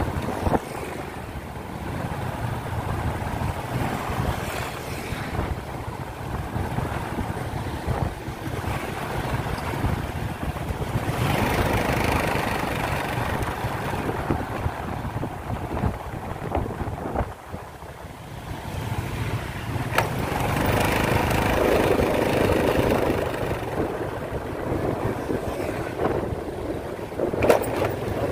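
Motorcycle ride heard from a bike-mounted camera: the engine running under a steady rush of wind on the microphone, swelling and easing with speed and quieter for a moment about two-thirds through, with a few sharp knocks.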